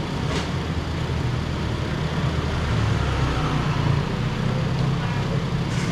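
Steady low hum of an idling vehicle engine, growing a little louder toward the middle, with a faint click about half a second in.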